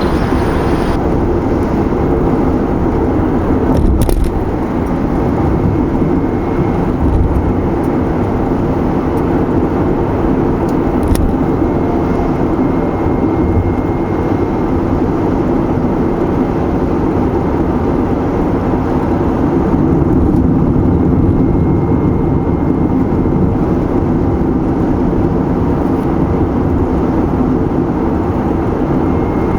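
Car driving along a road, with steady tyre and engine noise.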